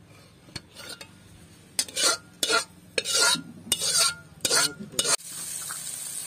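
Flat metal spatula scraping curry out of a black iron kadai into a metal bowl: about seven quick scrapes of metal on metal. Near the end it changes abruptly to the steady sizzle of prawns frying in the kadai.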